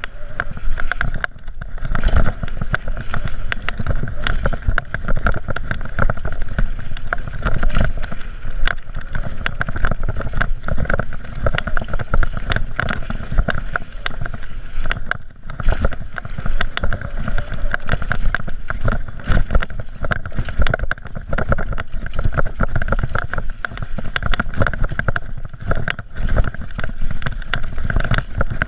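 Downhill mountain bike rattling and thudding at speed over a rough dirt forest trail: a constant low rumble packed with sharp knocks from the bike and its tyres hitting roots and rocks, with a brief lull about fifteen seconds in.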